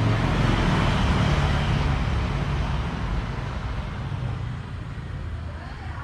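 A motor vehicle passing by, its engine and road noise loudest in the first couple of seconds and then fading away.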